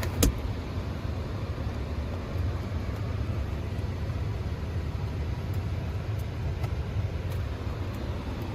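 Steady low rumble of an idling car engine heard from inside the cabin, with one sharp click just after the start.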